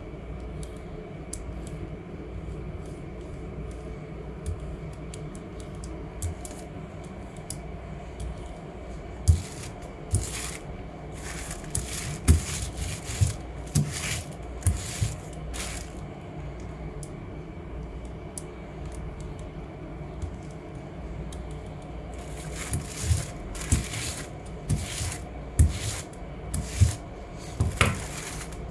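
Paper rustling and crinkling in short crackly bursts as a print is peeled from a gel printing plate and handled. There are two spells of it, one in the middle and one near the end, over a steady low hum.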